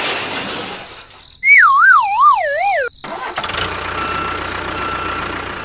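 Dubbed cartoon sound effects: a loud wobbling whistle tone that slides down in pitch for about a second and a half, followed by a steady engine-like rumble with hiss.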